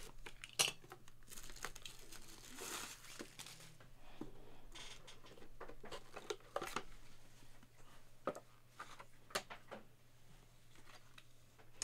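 A cardboard box's tape seal being slit with a box cutter, then the lid lifted off and the box handled: faint tearing and scraping with scattered small clicks.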